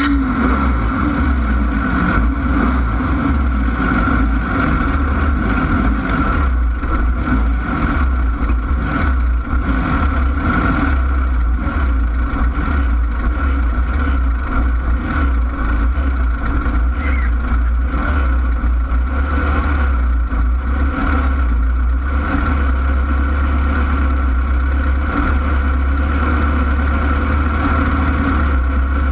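Class 1600 off-road race car's air-cooled Volkswagen engine running loud and steady at an even speed.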